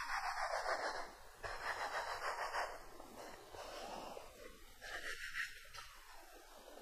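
Hands rolling a strand of semolina pici dough back and forth on a floured wooden board: a soft rubbing swish, louder in the first second or so, then fainter, with another brief swish about five seconds in.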